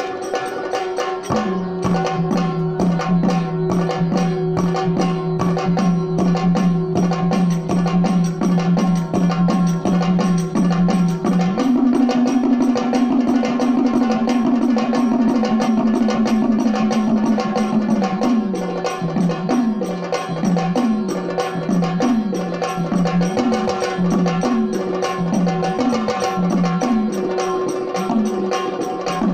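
Traditional Indian temple music: fast, dense hand drumming over held tones. A strong low held note steps up in pitch about halfway through, then gives way to repeated swooping low notes about once a second.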